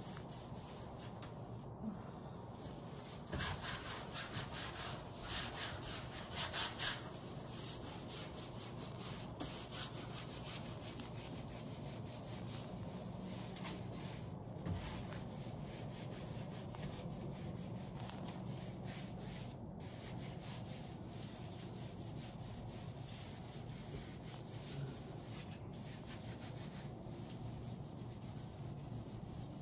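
Gloved hands rubbing and smearing wet acrylic paint along the edge and sides of a stretched canvas: a steady rub, with a few louder strokes a few seconds in.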